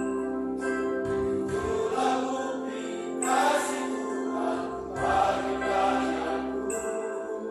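A combined choir singing in harmony, with long held notes that change every second or two.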